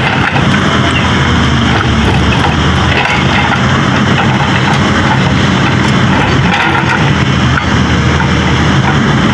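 Excavator-mounted hydraulic rock breaker hammering a boulder in rapid, continuous blows, over the steady running of the CAT excavator's diesel engine.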